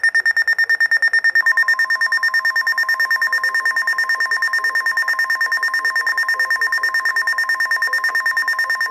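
Weather alert radio sounding a Severe Thunderstorm Warning: a loud, rapidly pulsing high beep, joined about a second and a half in by the steady 1050 Hz NOAA Weather Radio warning alarm tone.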